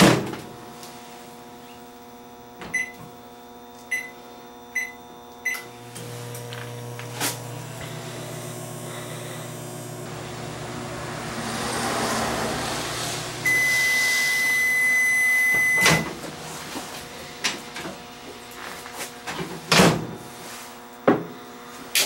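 Kenmore over-the-range microwave oven: the door thumps shut, the keypad beeps four times, then the oven runs with a steady low hum for about seven seconds. The hum stops with a long beep and a click. The repaired oven is heating without blowing its fuse.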